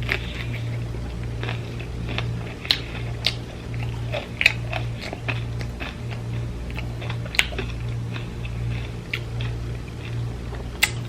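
A person chewing food close to the microphone, with a number of sharp, wet clicks from biting and mouth smacks, over a low, pulsing hum.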